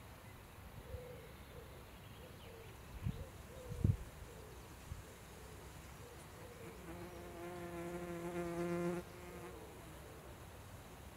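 A bee buzzing in flight: a faint, wavering buzz in the first few seconds, then a close, louder, steady buzz from about seven seconds in that stops abruptly about two seconds later. Two low thumps come a few seconds in.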